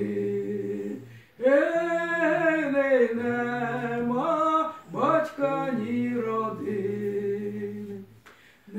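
A man sings a Ukrainian folk song unaccompanied, in drawn-out phrases. There are short breaks after about a second, after about four seconds, and near the end.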